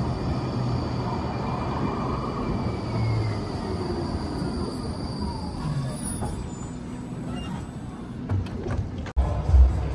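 A city transit vehicle running past with a falling whine, and a brief sharp high hiss about six seconds in. Near the end the sound cuts abruptly to music with a steady beat.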